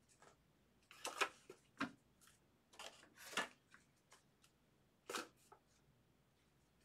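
Trading cards being handled during a pack break: a handful of short rustles and flicks as cards slide against each other, the loudest about a second in and again around three and a half seconds in.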